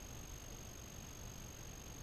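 Quiet room tone: a faint steady hiss with a thin, constant high-pitched whine over it, with no event standing out.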